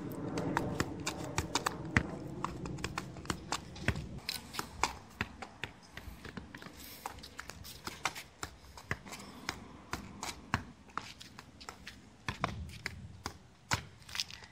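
Soccer ball being juggled off the feet and bouncing on asphalt: a string of irregular sharp taps, a few a second. A low hum sits under them in the first few seconds.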